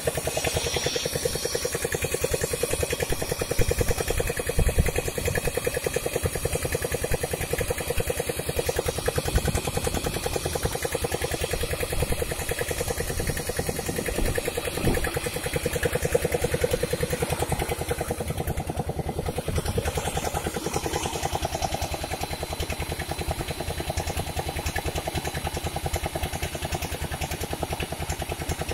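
Stand-mounted electric diamond core drill running steadily, its water-fed core bit grinding down into a concrete pavement slab.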